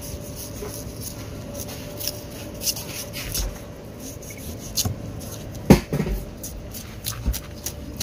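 A large golok cleaver cutting through a fresh tuna on a wooden chopping block: scattered short scrapes and wet clicks of the blade and the handled fish, with one sharp louder knock about five and a half seconds in.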